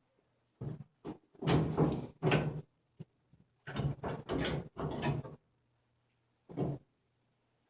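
Parts of a Maytag Bravo washer knocking and scraping as they are shifted by hand to seat the rollers under the tub: a run of short scrapes and knocks, then one more a little later.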